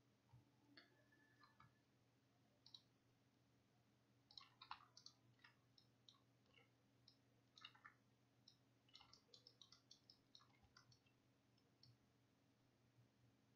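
Faint, irregular computer mouse clicks, some in quick clusters, over a low steady hum.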